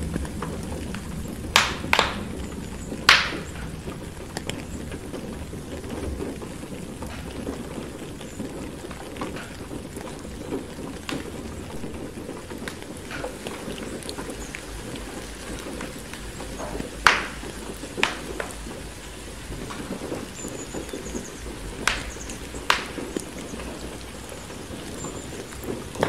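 Steady rain outside a window together with a crackling fireplace fire: a constant low rushing noise, with sharp pops every few seconds.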